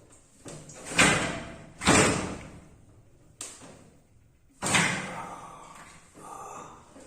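A massage therapist's open hands slapping a person's back hard, in separate blows: two loud slaps about a second apart near the start, a softer one, then another loud slap about halfway through, each with a short fading ring.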